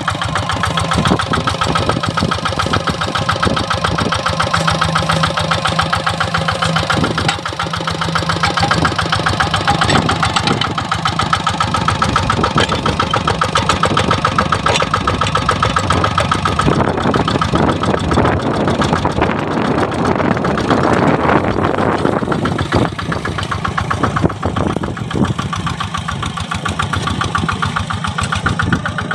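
The single-cylinder Kubota RD65 DI-1S diesel engine of a Quick Impala two-wheel hand tractor runs steadily with a fast, even firing beat as it pulls a plow through grassy paddy ground. About two-thirds of the way through, a louder, rougher rush rises briefly over the engine.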